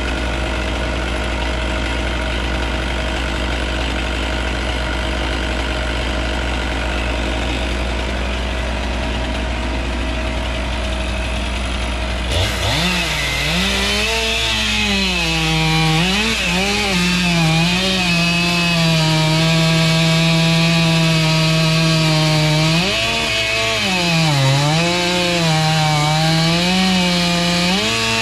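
A steady engine drone with a deep hum. About twelve seconds in, a chainsaw opens to full throttle and cuts into a large oak trunk, its pitch sagging and recovering again and again as the chain bogs in the wood.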